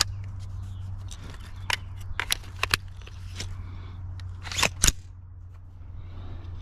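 Sharp metallic clicks and clacks from an AR-15 rifle's action being worked, as when clearing a failure. There are a few light clicks about two seconds in and a louder double clack just before five seconds.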